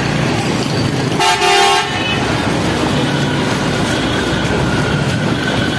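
A vehicle horn honks once, for about half a second, a little over a second in, over steady traffic noise from motorcycles and other vehicles moving through a flooded street.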